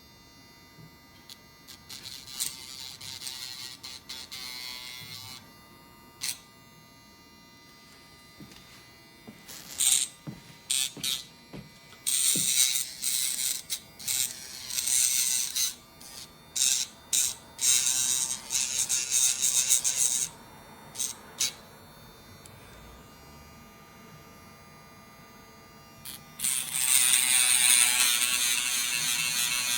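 Electric dog nail grinder running with a steady motor whine. It breaks into repeated loud grinding bursts, short and stop-start, then one longer stretch near the end, as the spinning sanding drum is pressed to the nails.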